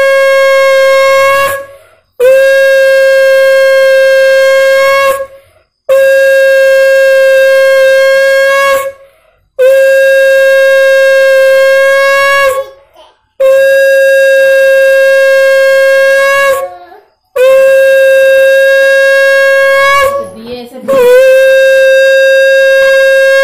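Conch shell (shankha) blown in a series of long, loud blasts of about three seconds each, with short breaths between. Each blast holds one steady pitch and dips slightly as it ends. The conch is being sounded in worship during the Ranna Puja offering.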